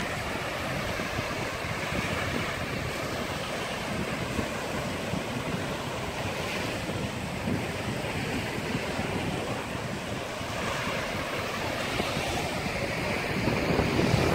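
Small sea waves breaking and washing up a sandy beach, a steady rushing surf, with wind buffeting the microphone.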